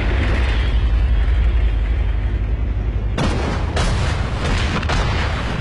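A deep, steady rumble, then artillery guns firing. The first sudden boom comes about three seconds in, and more shots follow within the next two seconds, each trailing off in a long rumble. This is the opening of an artillery barrage.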